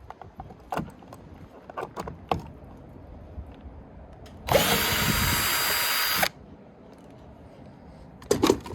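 Cordless drill-driver running steadily for about two seconds, then stopping sharply, as it backs out a screw from the door trim. A few light clicks and knocks of handling come before it and near the end.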